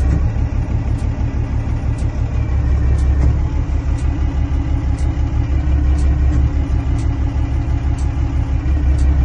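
Diesel engine of a Kalmar DCE 120-6 heavy forklift idling unevenly, with a sharp tick about once a second over the engine sound.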